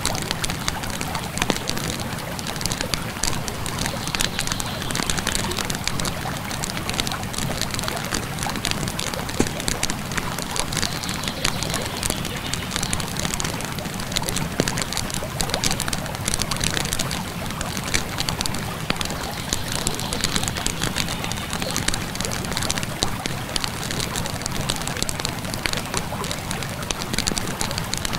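Campfire crackling, with many brief sharp pops over a steady rush of flowing river water.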